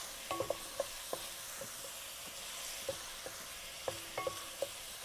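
Chopped onion sizzling gently in a stainless steel frying pan while it is stirred with a wooden spatula: a steady frying hiss with light taps of the spatula on the pan that ring briefly, in a cluster just after the start and another about four seconds in.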